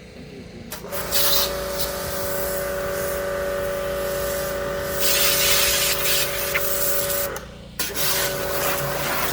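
Electric high-pressure washer running: a steady motor-pump hum starts about a second in, with the hiss of the water jet. The jet is loudest around the middle. The motor cuts out for about half a second near the end and starts again, as when the trigger is released and pressed.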